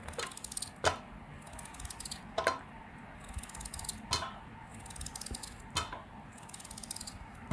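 Small kitchen knife slicing a peeled raw potato held in the hand: a scratchy crunching as the blade works through, with a short sharp tap about every second and a half, one for each thin round cut off.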